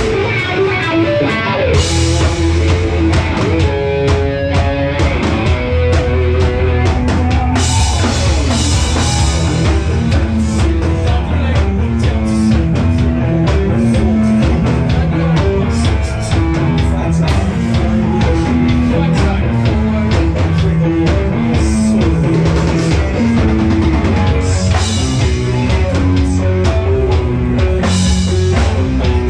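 Live rock band playing loudly through the venue's amplification: distorted electric guitar over a steady drum-kit beat.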